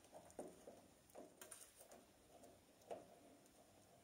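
Near silence with a few faint light clicks of small metal tools being handled at a lathe's threading die holder.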